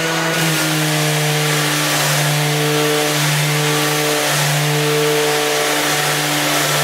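Milwaukee M18 cordless random orbit sander running steadily at the fifth of its six speed settings, sanding plywood. Its motor hum swells and fades about once a second over the hiss of the sandpaper on the wood.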